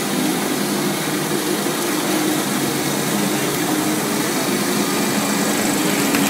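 PET bottle recycling line running: the conveyor and label-removing machine keep up a steady motor hum with an even hiss above it.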